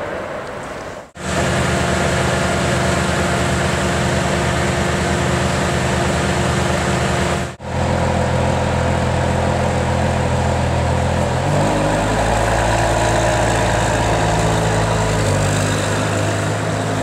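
Ferrari 599 GTO's 6.0-litre V12 running at low revs with a steady note. The sound breaks off briefly twice, and the engine note settles to a different steady pitch about two-thirds of the way through as the car moves off slowly.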